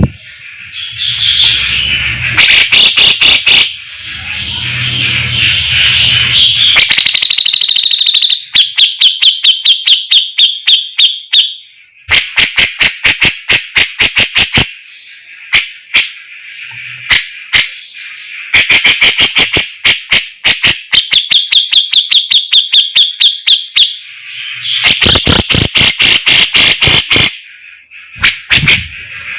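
Javan cucak jenggot (grey-cheeked bulbul) singing loudly in rapid chattering runs of quick, evenly spaced notes, broken by short pauses.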